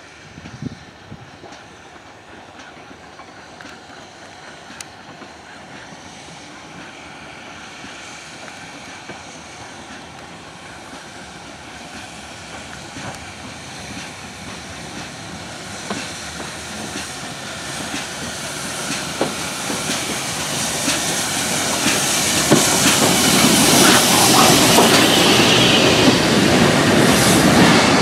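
Steam train hauled by 9351, a GWR-design 2-6-0 Mogul, approaching and drawing into a station, growing steadily louder as it nears. Wheels click over the rail joints, and in the last few seconds, as the coaches pass close, there is a loud hiss and a wheel squeal.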